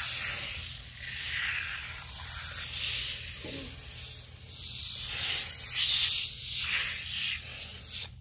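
Foam tire cleaner being sprayed onto an old lawn mower tire and rim, a hiss in several long bursts.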